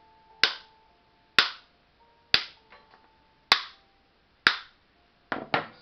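Light hammer taps on a dry coconut's hard shell, five single sharp knocks about a second apart, then a quick double knock near the end, each with a short ring, cracking the already split shell loose.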